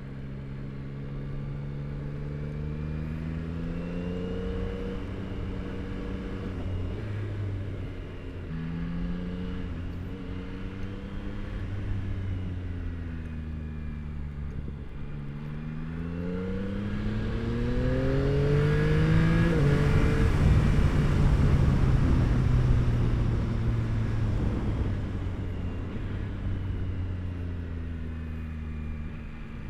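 Yamaha R9's inline three-cylinder engine through an Akrapovic exhaust, ridden hard: the engine note climbs and drops again and again as the rider accelerates, shifts and backs off. About two-thirds of the way in it is louder for several seconds, with a rushing noise under it.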